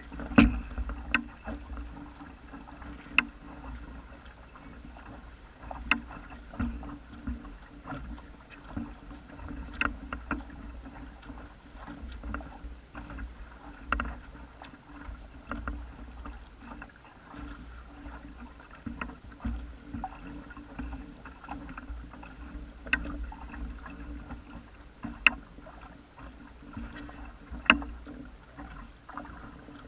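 Small waves lapping and slapping against the hull of a small wooden sailing dinghy under way, with sharp irregular slaps every one to three seconds over a low steady rumble.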